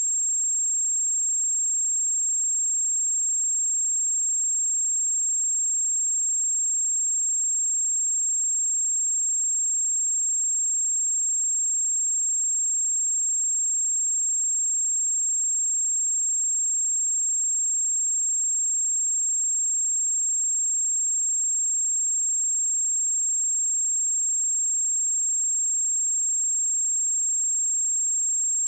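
A pure 7491 Hz sine-wave test tone: a single steady high-pitched whistle, unchanging in pitch and loudness.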